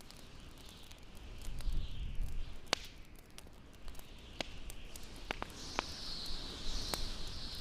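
Wood fire crackling, with scattered sharp pops, over a hissing winter wind that swells and grows louder in the second half.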